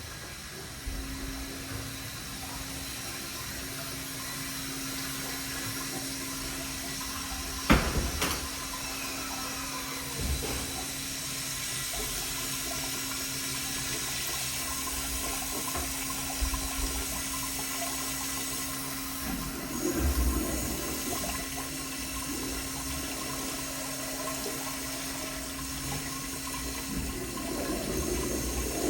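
American Standard Afwall wall-hung toilet flushing, with a steady rush of water. A sharp click about eight seconds in is the loudest moment.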